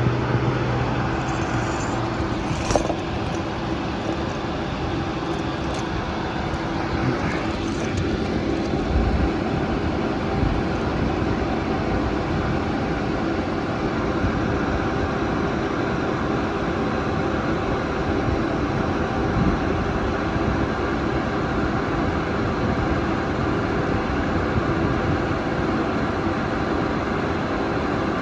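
A car engine idling steadily after a fresh oil change, with a sharp click about three seconds in.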